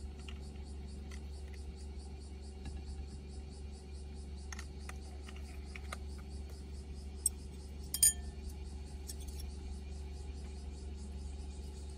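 Light tableware taps and a sharp, short clink of metal chopsticks against dishes about eight seconds in, the loudest sound. Under it runs a steady low hum with a fast, even pulsing buzz high up.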